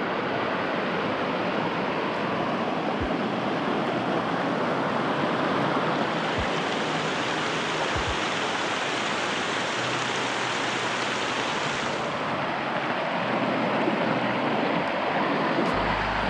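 Steady rushing of a mountain stream's waterfalls.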